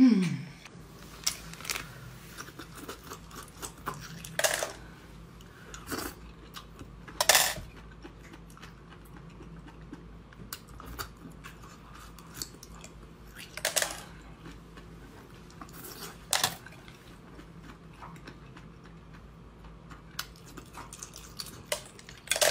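Close-up eating sounds of shellfish: scattered short clicks and clacks of shells, mostly skewered sea snails being bitten off and sucked from their shells, over a faint steady hum.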